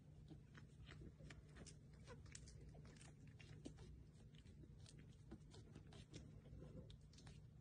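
Very faint sounds of pug puppies play-biting and tussling: small, irregular clicks and nibbling noises over a steady low hum.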